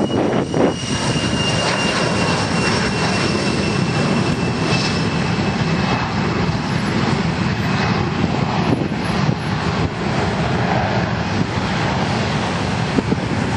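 Cessna 750 Citation X business jet's twin Rolls-Royce AE 3007 turbofans at takeoff thrust as it lifts off and climbs away. A steady jet noise with a high whine that slowly drops in pitch over the first eight seconds or so.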